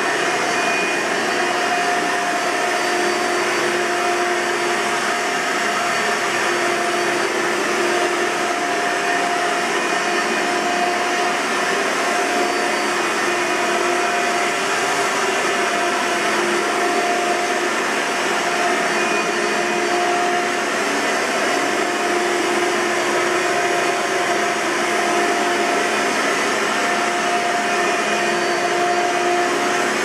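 A 1996 Hoover Sprint Elite upright vacuum cleaner running steadily while pushed back and forth over carpet: a constant rush of motor and airflow, with a hum that fades in and out every few seconds.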